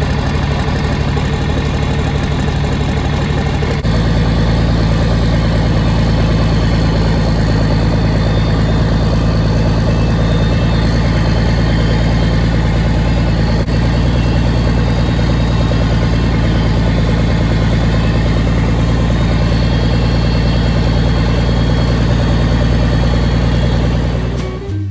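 International 1066 tractor's turbocharged six-cylinder diesel running steadily as the tractor is driven. The engine note shifts slightly about four seconds in.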